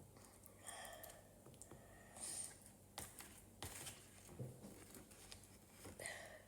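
Near silence, broken by faint scattered clicks and short rustles of food and kitchen items being handled.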